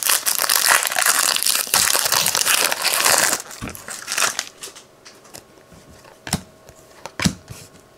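Foil wrapper of a Panini Prizm Draft Picks baseball card pack crinkling and tearing as it is ripped open, for about three and a half seconds. After that, quieter, with a few soft clicks and slides as the cards are handled.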